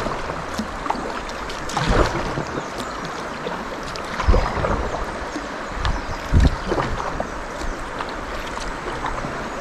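River water rushing steadily past a kayak, with a few low thumps and splashes, the loudest about two, four and six seconds in.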